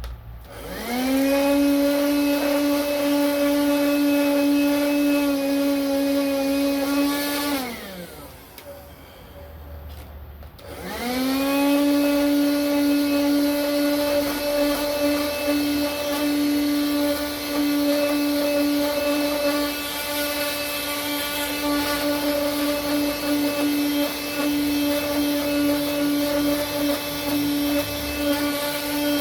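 Small 12 V car vacuum cleaner motor, powered from a PC ATX power supply, switched on and spinning up to a steady whine. After about seven seconds it is switched off and winds down, then about three seconds later it is switched on again, spins up and keeps running.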